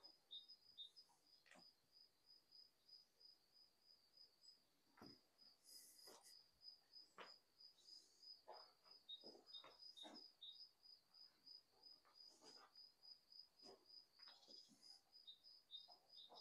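Near silence with a faint high chirp repeating evenly about three times a second, and scattered soft crunches of footsteps on rubble and debris.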